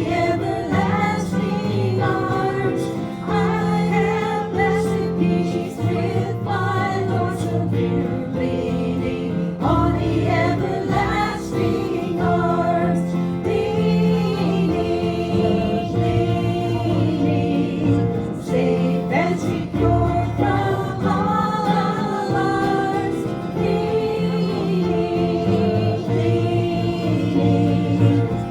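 Group of voices singing a gospel hymn over sustained low accompanying notes.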